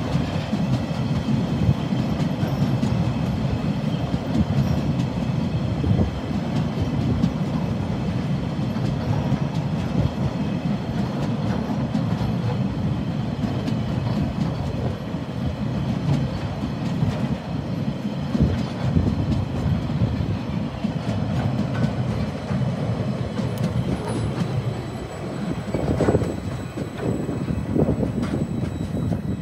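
Empty log wagons of a freight train rolling past, a steady rumble of steel wheels on the rails. The last wagon passes near the end.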